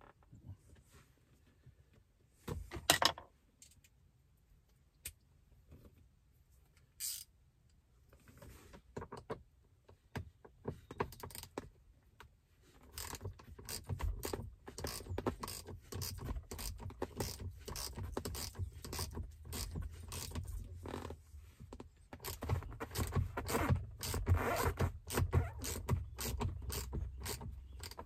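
A few scattered knocks and a sharp clatter about three seconds in, then from about halfway on a long run of fast clicking as a Torx driver works the bolt that holds the armrest hinge to the seat.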